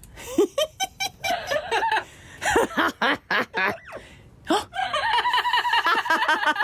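Parrot imitating human laughter: scattered short chuckles and clicks, then from about two-thirds of the way in a fast, even string of ha-ha notes. The laugh is remarkably human, close to a girl's laugh.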